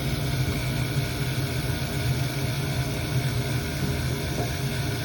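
Older Carrier 80% gas furnace running with its burners lit: a steady low hum and rushing noise from the burner flame and draft inducer. The flame is holding now that the dirty flame sensor has been cleaned.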